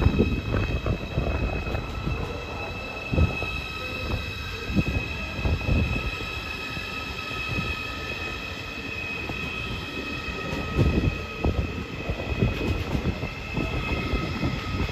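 ICE high-speed train rolling slowly past, its wheels squealing in a steady high-pitched squeal of several tones over a low rumble and irregular low thumps from the running gear on the track.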